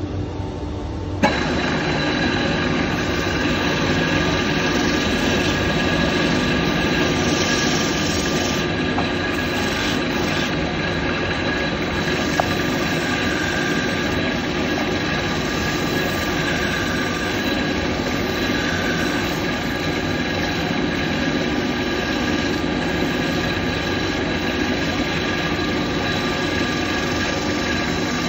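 Spindle sander running while a wooden axe handle is pressed by hand against its sanding drum and shaped. The sound is steady, with a sharp click about a second in, after which it gets louder and fuller.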